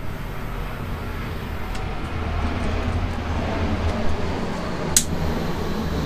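Handheld butane torch burning with a steady hiss, heating a soldered bullet connector to melt the solder so it can come off the wire. A single sharp click about five seconds in.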